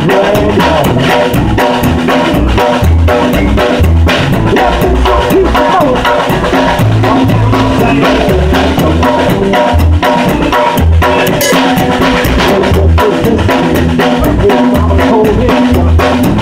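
A live band plays with a steady rock beat, heard from right behind the drum kit, so the drums and cymbals stand out. Bass notes and an electric guitar play along underneath.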